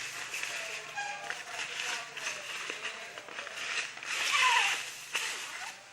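Handling noise as the sections of a carbon graphite travel rod are fitted together: rustling with small clicks and light knocks. There is a louder rustle about four seconds in.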